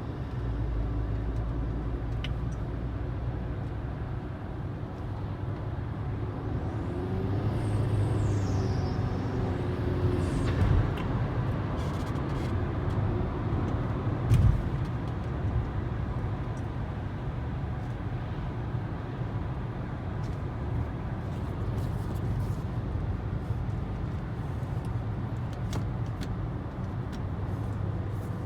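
Audi B8 A4's turbocharged engine pulling under load with a choppy turbo whistle, heard as a high falling whistle a few seconds in. The whistle appears under high load at 2500–3500 rpm even with a newly installed turbo and PCV valve, and its cause is unknown. A short thump about halfway through.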